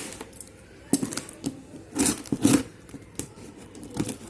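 Toy-car packaging being handled and cut open: irregular clicks, snaps and crackles of plastic and cardboard.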